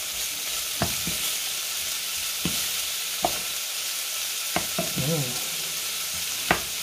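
Diced pork belly frying in a pan with a steady sizzle, stirred with a wooden spoon that knocks and scrapes against the pan now and then. The pan is dry: the meat is frying without giving off water.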